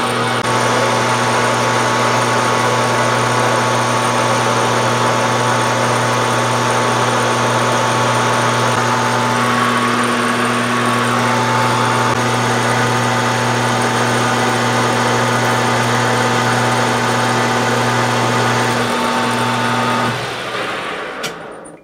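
Metal lathe running steadily while the cutting tool takes a turning pass along a metal bar. About two seconds before the end the lathe is switched off and winds down, with a single click.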